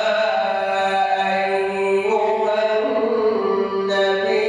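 A man chanting Quran recitation in tajweed style, one voice drawing out long held notes with slow shifts in pitch.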